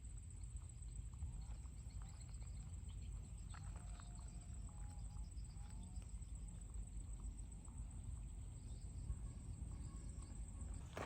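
Quiet outdoor nature ambience: a steady high-pitched drone runs throughout, with a few faint chirps in the middle over a low rumble.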